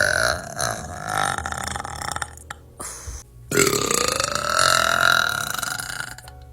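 Two long, drawn-out burps from young women, one after the other. The first is already under way and stops about two seconds in. The second starts about three and a half seconds in and lasts nearly three seconds, its pitch rising at the start and then holding steady.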